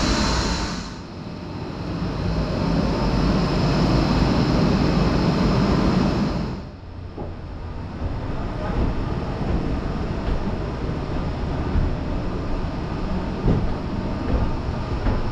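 Tea factory machinery running with a steady rumble and low hum, turning duller about a second in and again about six and a half seconds in. Footsteps knock on wooden stairs near the end.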